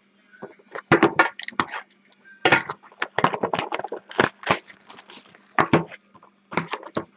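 A Prime Signatures trading-card box being torn open by hand: a quick, irregular run of crackles and snaps of wrapping and cardboard as the box is opened.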